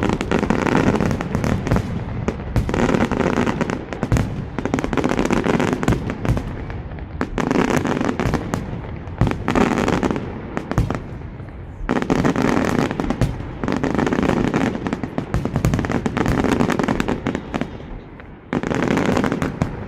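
Fireworks display: a dense, continuous barrage of crackling bursts and bangs that swells and eases in waves, with two short lulls, one about halfway through and one near the end.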